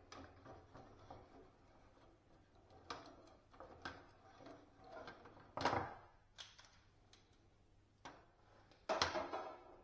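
Scattered clicks and knocks of awning fittings being handled and fitted by hand, with two louder clunks, one about six seconds in and one near the end.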